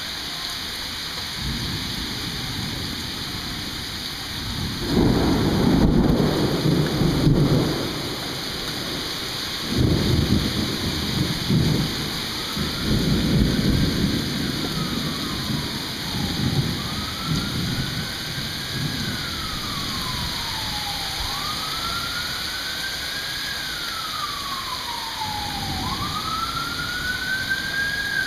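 Steady rain with two heavy rolls of thunder, about five and ten seconds in. From about twelve seconds in, a wailing siren rises and falls every few seconds, growing louder.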